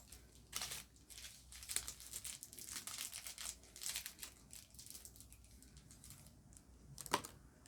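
Soft packaging crinkling and rustling in short, irregular bursts as it is handled, with a sharper crackle about seven seconds in.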